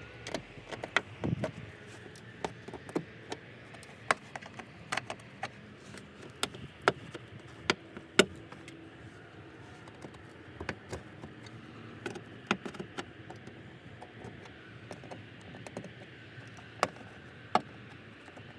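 Irregular sharp clicks and snaps of plastic push-pin trim clips being pried out of a car's trunk lid trim cover, with handling of the loosened panel.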